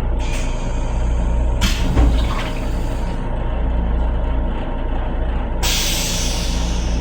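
Steady low rumble of a moving M7 electric railcar heard inside its restroom. Three stretches of hissing come and go over it, the loudest shortly after a second in, with a thump about two seconds in.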